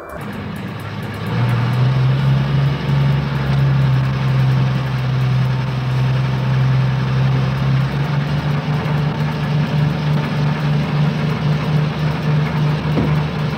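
Cartoon sound effect of a tow truck's engine running steadily at idle, a low rumbling drone that swells about a second and a half in.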